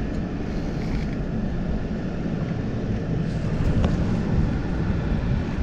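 Wind buffeting the microphone in a steady, heavy low rumble, with a faint click about four seconds in.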